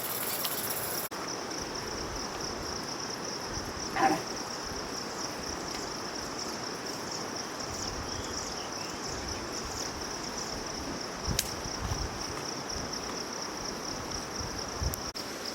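Insects chirring in one steady, unbroken high-pitched drone, with a short call about four seconds in.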